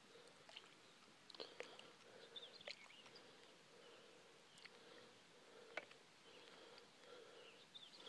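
Near silence: faint outdoor pond-side ambience with a few soft, distant bird chirps and several small clicks.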